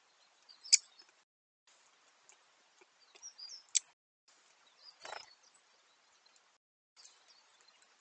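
Two sharp clicks, about three-quarters of a second and nearly four seconds in, with a few short high chirps and a brief rustle about five seconds in, from a great spotted woodpecker feeding at a seed dish. Under them runs a faint steady hiss that cuts out completely three times where short trail-camera clips are joined.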